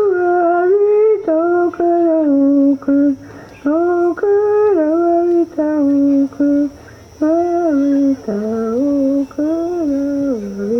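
A single voice humming a slow melody in held notes that step up and down in pitch, in short phrases with brief pauses between them.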